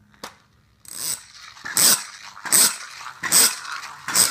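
A dog barking five times in a steady run, about one bark every 0.7 seconds, starting about a second in.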